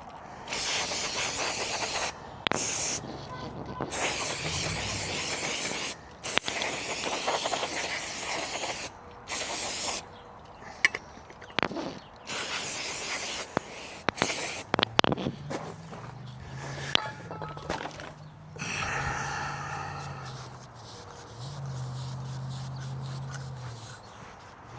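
Repeated hissing bursts of spray, on and off for about fifteen seconds, as scooter transmission parts are cleaned. After them come a few sharp clicks and a low steady hum.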